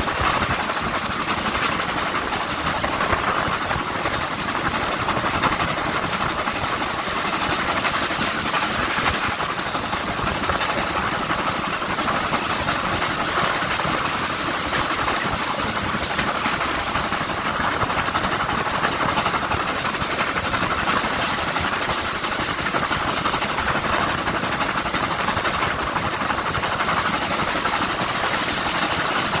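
BR Standard Class 9F 2-10-0 steam locomotive 92134 working hard up a steep 1 in 49 gradient, heard from the carriage behind its tender through a phone microphone: a dense, steady sound that does not let up.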